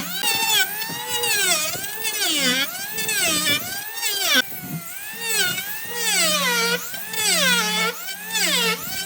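Whine of an electric woodworking power tool's motor, its pitch sliding up and down about once a second as the load changes, with a steady hum coming and going underneath.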